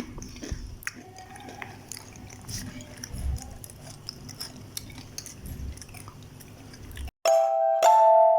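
Close-up chewing and wet mouth clicks while eating noodles. About seven seconds in, the chewing cuts off and a loud two-note chime is struck twice and rings on.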